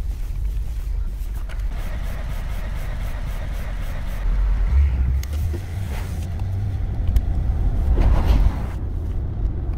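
Hyundai Veracruz SUV driving on the road, heard from inside the cabin: a steady low rumble of engine and tyres. The higher hiss drops away near the end.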